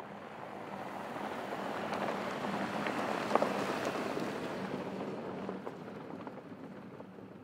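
A Porsche Cayenne S drives past on a loose dirt and gravel track: a steady rush of tyres on gravel with scattered stone clicks, under a low engine note. It builds to a peak a few seconds in, then fades as the car pulls away.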